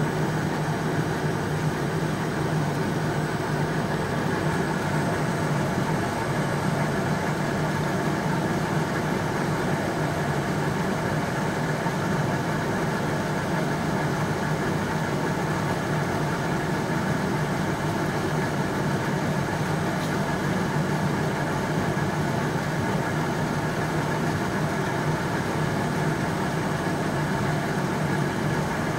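FQ-A slitter-rewinder running at a steady speed, slitting plastic film and winding it onto rewind rolls: an even machine hum with a low drone and several fixed tones above it.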